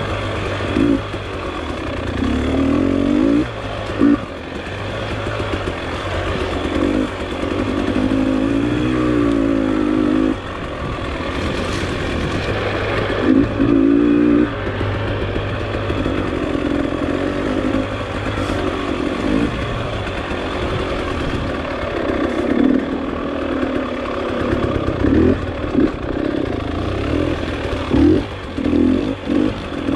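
Dirt bike engine running under load, revving up and down in short bursts again and again as the throttle is opened and closed.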